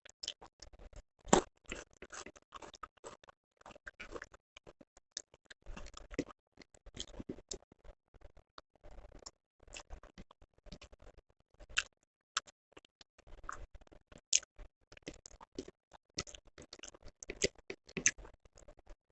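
Close-miked eating: a run of irregular wet chewing and mouth clicks from someone eating a meal of curry, rice and roti, with a sharper, louder click just over a second in.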